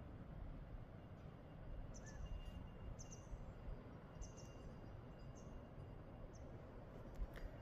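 Low, steady rumbling background noise with a small bird giving short high chirps, five times about a second apart, and a sharp click near the end.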